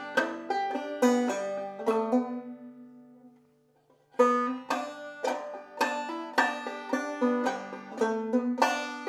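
Clawhammer banjo playing a short old-time melody phrase, the plucked notes dying away about two and a half seconds in. After a brief pause the phrase starts again with a strong strike about four seconds in and ends on a ringing note.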